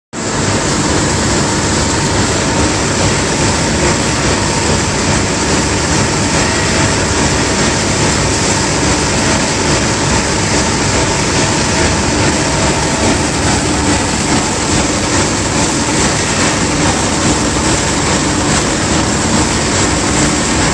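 Flexible-packaging film converting machine running steadily: a loud, even mechanical rumble and hiss from the rollers and drives as film travels past the laser unit, with no breaks or changes.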